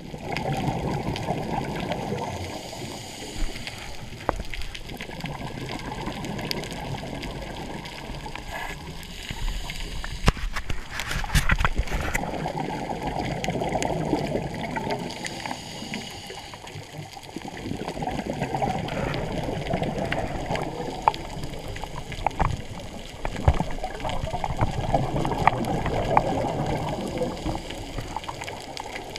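Scuba diver's regulator exhaust bubbles heard underwater: a muffled bubbling rumble that swells and fades every few seconds with each breath. A few sharp knocks from handling the camera housing.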